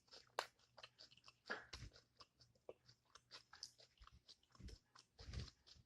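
A person chewing taco salad with crunchy tortilla chips up close: a quick run of faint, crisp crunches and mouth clicks.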